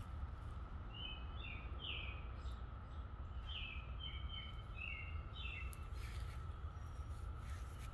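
Steady distant hum of a periodical cicada chorus, with a songbird singing two short runs of quick chirps over it, and a low wind rumble underneath.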